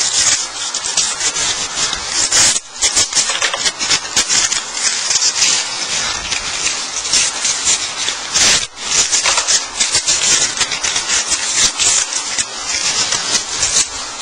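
Strips of blue painter's tape laid over wood veneer and rubbed down hard by hand: a steady rough rubbing with many small crackles, dipping briefly about two and a half and nine seconds in.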